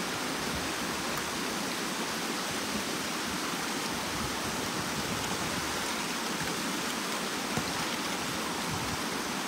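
Steady rush of shallow river water flowing over a stony bed, an even hiss with no separate splashes standing out.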